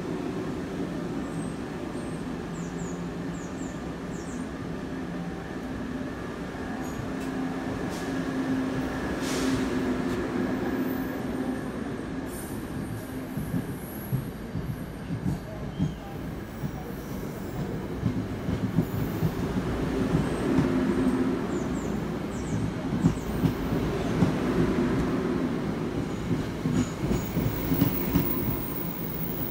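New Jersey Transit passenger train rolling past the platform: a steady low hum at first, then wheels clattering over rail joints, the clicks coming louder and more often in the second half as the train picks up speed.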